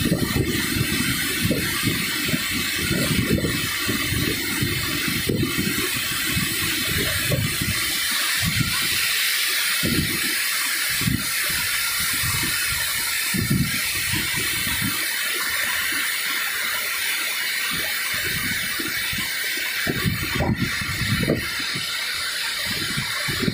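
Steady rushing of river water pouring over a weir spillway and flowing through the shallows. Irregular low thumps and rumbles sit underneath, heavier in the first few seconds and again near the end.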